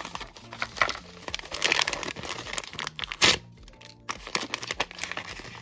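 Toy blind box packaging being handled and opened: irregular crinkling and tearing, loudest about three seconds in, over quiet background music.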